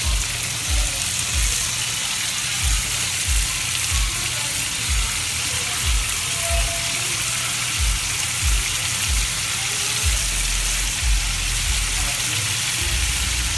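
Scallops frying in melted, foaming butter in a hot cast iron pan: a steady sizzle.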